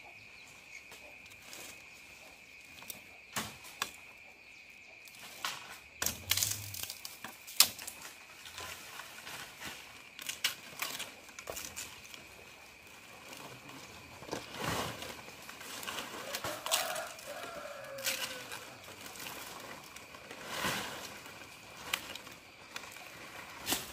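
Irregular sharp snaps, crackles and rustling, over a steady high-pitched insect drone. A short falling call comes about two-thirds of the way through.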